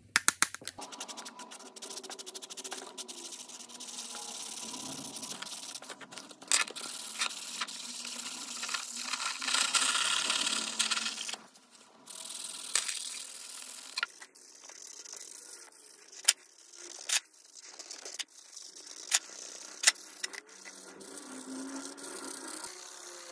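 Marker nib scratching and rubbing across paper in quick back-and-forth strokes as an area is coloured in. Sharp clicks and taps from handling the marker and the page break in now and then, several of them loud in the second half.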